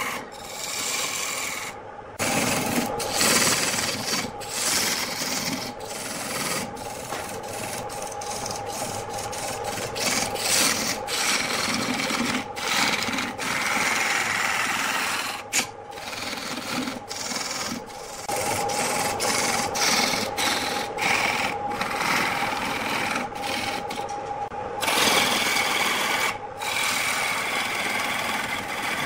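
Wood lathe turning a spinning wooden blank while a hand-held turning tool cuts it: a rough, continuous scraping and shaving over the lathe motor's steady hum. The cut keeps breaking off for a split second, over and over.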